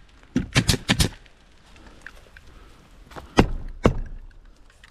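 Pneumatic stapler firing staples through the nailing flange of a vinyl siding outside corner post into the wall: four quick shots in the first second, then two more about half a second apart a little past the middle.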